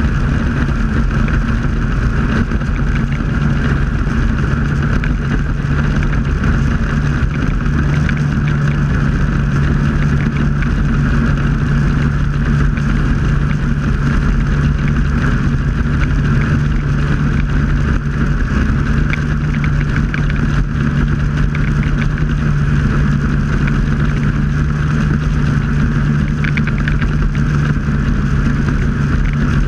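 Snowmobile engine running steadily at cruising speed, heard from on board the sled: a constant drone that holds one pitch throughout, over the rumble of the ride.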